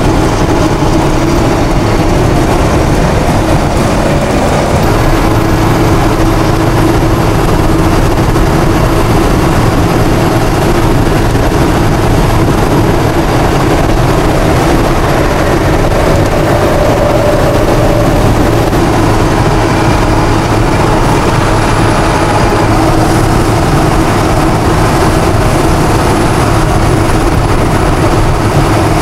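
Steady engine drone and road noise inside a vehicle's cab, cruising at highway speed.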